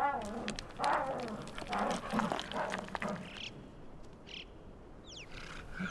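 Snow leopards snarling and growling while mating, in several short, harsh bursts packed into the first three seconds. A few short, high, falling chirps follow near the end.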